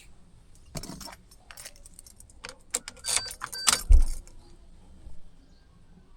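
Keys jangling and clicking in short, irregular rattles, with a single low thump about four seconds in.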